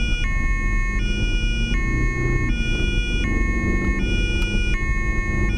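German police two-tone siren sounding continuously, alternating between a low and a high tone about every three-quarters of a second, with steady road and engine noise underneath.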